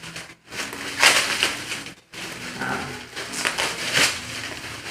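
Packaging being handled during an unboxing: crinkling and crushing noises in several bursts.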